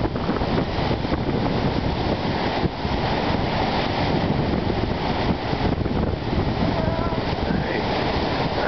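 Wind-driven waves on Lake Superior breaking and washing over a rocky shoreline, a steady heavy surf, with wind buffeting the microphone.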